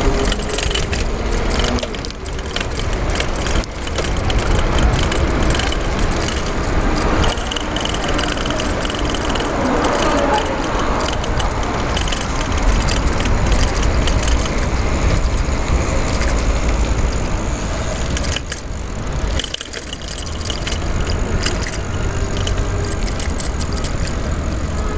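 A bicycle chain lock rattling and jingling as the bike rides, in quick irregular clicks, over a steady low rumble of wind and tyres on a chest-mounted GoPro.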